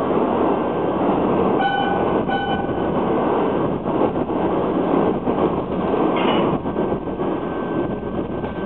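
N-gauge model trains running on a layout: the steady whir and rumble of the small motors and wheels on the track as a model electric locomotive passes. About two seconds in come two short, identical, high beeps.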